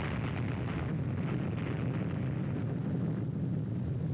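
Steady rumbling roar of an explosion on an old film soundtrack, with no single sharp blast.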